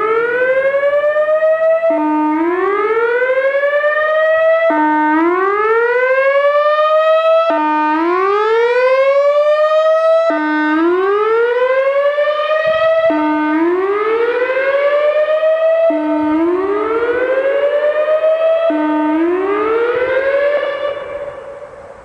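Whelen WPS-3016 electronic outdoor warning siren sounding its whoop tone: a short low note that sweeps upward and cuts off, repeated about every three seconds, fading out near the end. The siren is malfunctioning on this tone, which the uploader figures could be a blown speaker driver.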